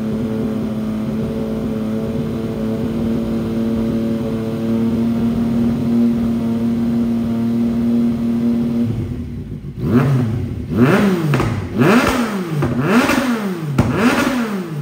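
2018 Yamaha MT-09's 847 cc inline-three running through a replica Akrapovic stainless-steel full exhaust system, at a steady engine speed for about nine seconds. Then five quick throttle blips follow, each rev rising and dropping sharply.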